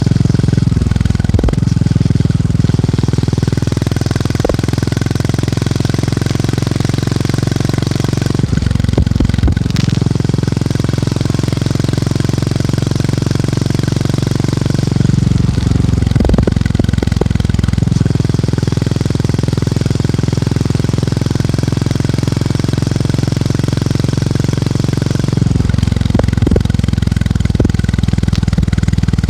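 Motorcycle engine and exhaust thumping at a steady beat while riding. The engine note breaks and changes briefly four times, roughly every seven to ten seconds.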